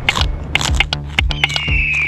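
Background electronic music with a steady drum beat over sustained bass notes; a high held tone comes in about one and a half seconds in and sinks slightly in pitch.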